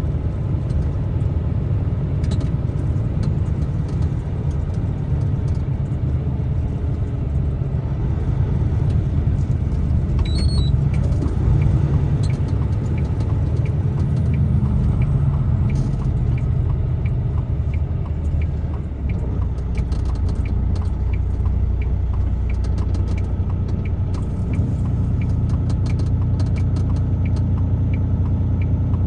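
Steady low engine and road rumble inside a moving truck's cab, with a faint run of evenly spaced ticks in the second half.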